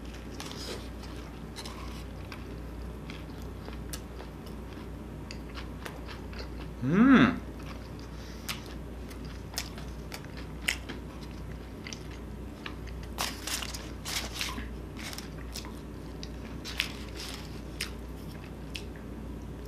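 Close-miked biting and chewing of a Shake Shack Shack Stack burger, a cheeseburger topped with a deep-fried mushroom, with scattered short wet clicks and smacks. About seven seconds in there is one short hum from the eater, rising then falling in pitch, the loudest moment.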